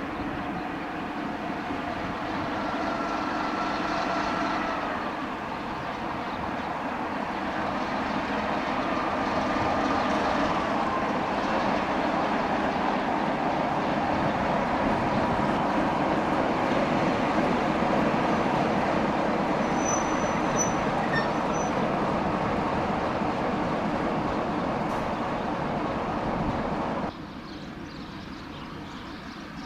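Train hauled by a DHC diesel-hydraulic locomotive passing close by: a steady rolling rumble of wheels on the rails that swells and holds, with faint high steady whines a few seconds in and again around ten seconds. The sound drops abruptly near the end.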